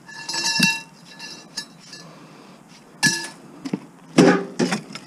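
Pieces of scrap metal clanking against each other. The first strike rings on for over a second, a second ringing clank comes about 3 s in, and a louder, duller knock with a few smaller ones follows near the end.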